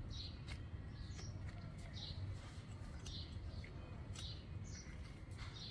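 Puppies squeaking in short, high yelps about once a second while play-fighting, with a few light scuffling clicks over a low steady rumble.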